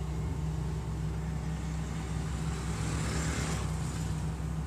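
Diesel engine of a Hitachi EX200-2 hydraulic excavator running steadily, with a brief hiss a little past three seconds in.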